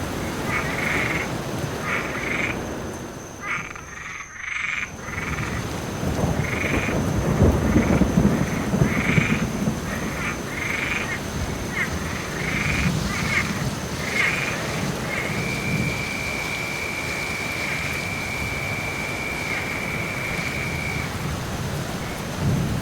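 Steady rain with frogs calling over it in short repeated croaks, about one every half second, and one long trill held for several seconds in the second half. A low rumble of distant thunder swells and fades near the middle.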